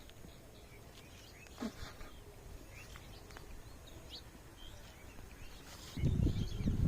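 Faint bird chirps scattered over a quiet rural background, with one short pitched call about a second and a half in. Near the end, louder low rustling and thuds begin.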